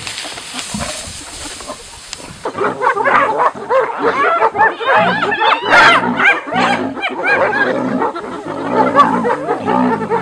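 Several spotted hyenas giggling and whooping together, a dense chorus of quick rising-and-falling calls that starts about two and a half seconds in.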